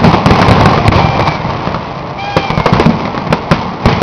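Aerial fireworks bursting in quick succession: a loud, dense stream of overlapping bangs and crackling pops from glittering shells.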